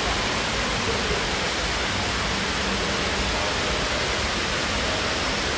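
Tall indoor water-curtain waterfall, water sheeting down a vertical wall: a steady, even rushing hiss.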